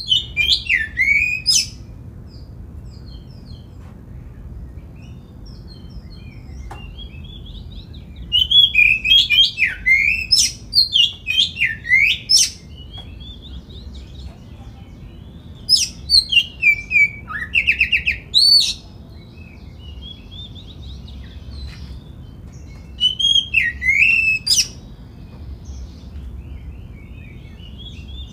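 Oriental magpie-robin (kacer) singing in bursts: loud phrases of whistled notes that glide up and down, mixed with sharp upswept chirps, separated by pauses of several seconds.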